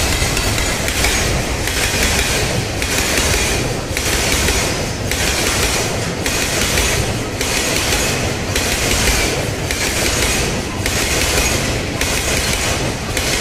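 Freight train of Taki 1000 tank wagons rolling past at close range: a steady rumble with a rhythmic clatter of steel wheels on the rails recurring about once a second.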